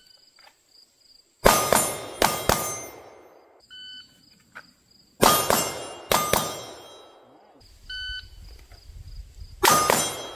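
Electronic shot-timer beep, then about a second and a half later pistol double taps, two quick pairs of shots, with steel targets ringing after the hits. The beep-and-shots sequence comes three times, about four seconds apart.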